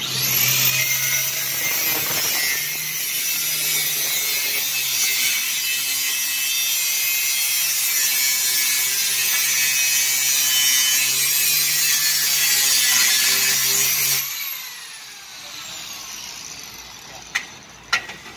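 Handheld angle grinder cutting into a metal pipe, running steadily under load. About fourteen seconds in it is switched off and winds down with a falling whine. A few sharp metal knocks come near the end.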